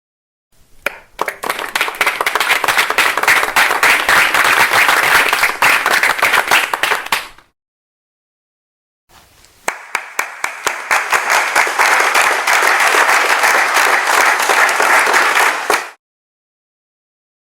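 Two separate bursts of audience applause, many hands clapping in a dense patter, each lasting about seven seconds. The first starts about half a second in and ends about seven and a half seconds in; the second starts about nine seconds in and stops about sixteen seconds in. Dead silence lies between and after them.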